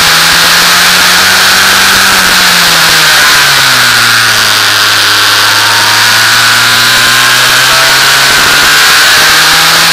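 Onboard sound of an F2000 formula car's four-cylinder engine, held to about 5000 rpm by a glitch. The revs drop about three seconds in as the car slows for a bend, stay low, then climb again near the end as it accelerates. Wind rushes over the open-cockpit microphone.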